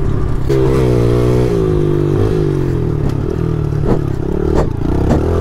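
Yamaha TTR110 pit bike's small four-stroke single-cylinder engine running under throttle, the revs climbing about half a second in and then dropping in steps. A few sharp knocks come in the second half.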